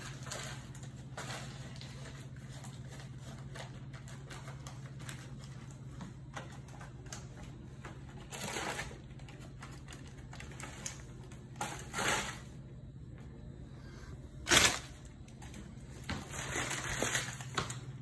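Paper microwave popcorn bag crinkling and rustling as a mini Australian Shepherd chews and noses at it, with many small clicks between short bursts of crackling; the loudest crackle comes about three-quarters of the way through. A steady low hum runs underneath.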